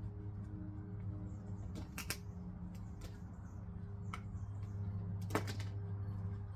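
A steady low hum with a few sharp clicks and taps over it: two close together about two seconds in, one about four seconds in, and a louder cluster near five and a half seconds.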